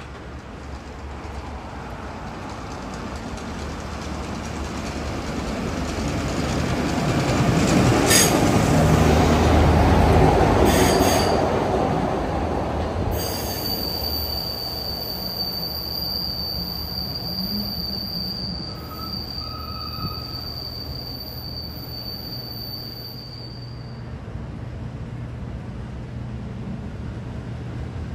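Rail vehicles rolling past on steel rails: a rumble that builds to its loudest about eight to eleven seconds in, with two sharp clacks, then a long, steady, high-pitched wheel squeal lasting about ten seconds before fading back to a low rumble.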